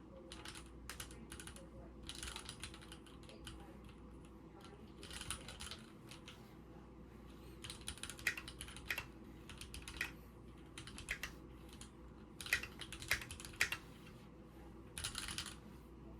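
Keys clicking and clacking on a Keychron Q6 mechanical keyboard, in irregular clusters with short rustling bursts between them and a few sharper clacks in the second half.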